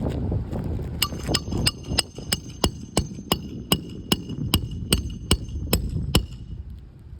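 A hammer striking about three times a second for around five seconds, each blow with a short metallic ring, typical of driving roofing nails into an asphalt shingle. Wind rumbles on the microphone underneath.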